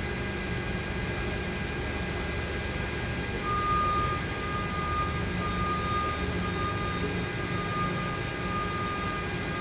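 Steady electrical hum and fan noise from a powered-up Haas ST-15Y CNC lathe as its control boots. A high whine joins about three and a half seconds in, with short breaks.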